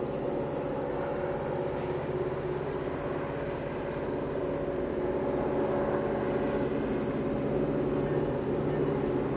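Distant diesel freight locomotives approaching, their engines making a steady low drone that grows slightly louder over the second half. A thin, steady high-pitched whine runs underneath.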